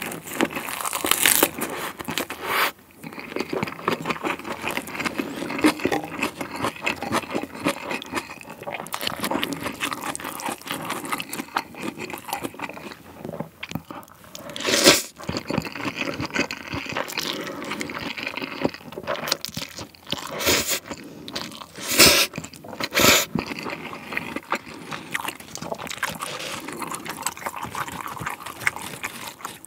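Close-miked eating sounds: a man chewing a crunchy lettuce wrap of spicy stir-fried chicken, then eating a mouthful of spicy stir-fried noodles, with irregular crunching and wet chewing and a few louder sharp moments in the second half.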